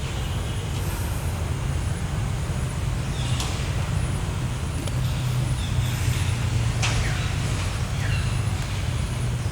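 A steady low engine-like rumble, with a few short, high, falling squeaks over it.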